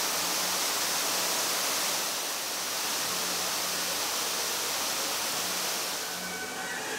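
Artificial waterfall: several cascades of water falling down a rock face into a pool, a steady even rush of falling water.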